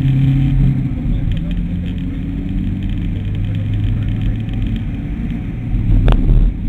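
Mitsubishi ASX's engine driven hard, heard from inside the cabin over road and tyre rumble; its note drops in pitch about a second in, then holds steady. A short sharp knock near the end.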